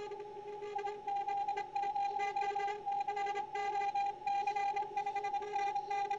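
Morse code (CW) signals received on an Icom IC-7300 HF transceiver on the 17-metre band. A clear tone is keyed rapidly on and off, with a fainter lower-pitched station keying underneath, over a steady hiss of band noise.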